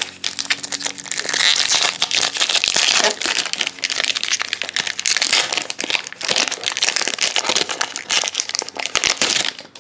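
Trading-card pack wrapper crinkling and baseball cards rustling as they are handled and flipped through: a dense, continuous crackle that stops abruptly near the end.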